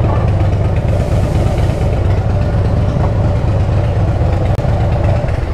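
Harley-Davidson V-twin motorcycle engine idling with a steady, lumpy low pulse, cutting off at the very end.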